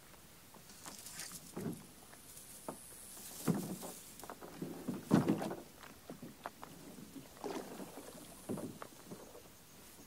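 Hollow plastic kayak bumping and scraping on a concrete boat ramp as it is carried down and set at the water's edge: several dull thumps, the loudest about five seconds in, with scattered knocks after.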